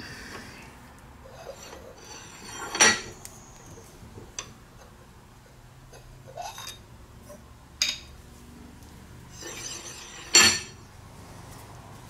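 Steel parts clinking and clanking at an arbor press while a seal is pressed into a cast axle bearing hub: two loud ringing metal clanks, about three seconds in and near the end, with a few lighter clicks between.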